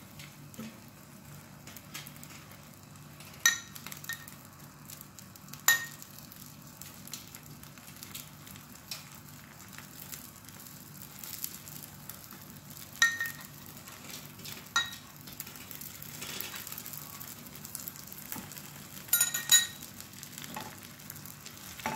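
Egg and bread frying in a nonstick pan with a steady sizzle, broken by several sharp clinks of a metal fork against the pan as the egg layer is pressed flat.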